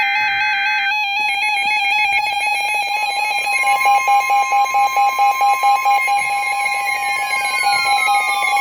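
Emergency alert tones: a short burst of digital data noise for about the first second, then a loud, steady electronic alert tone that pulses rapidly, with falling sweep tones coming in over the last two seconds.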